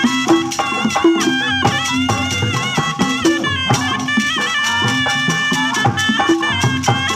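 Sundanese tarompet, a double-reed shawm, playing a nasal, ornamented bandrong melody full of quick pitch bends and trills, over fast kendang hand-drum strokes.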